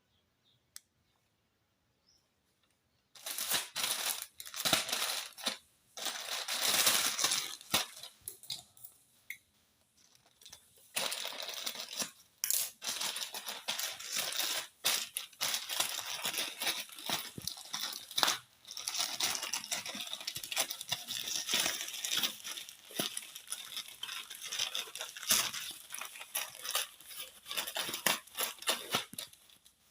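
Packaging crinkling and rustling in quick irregular bursts as it is handled and torn open, starting about three seconds in.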